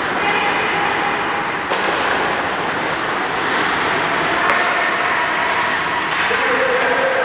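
Steady noise of an indoor ice rink during a hockey skating drill, with two sharp cracks of a puck being hit, one about a second and a half in and one a little before five seconds in.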